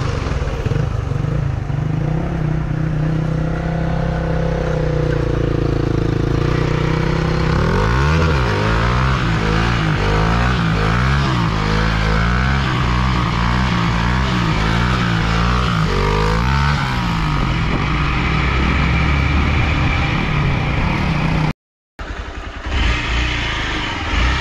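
Dirt bike engines running at road speed. Through the middle the revs rise and fall over and over, as when a rider works the throttle to hold a wheelie. The sound drops out for a moment near the end.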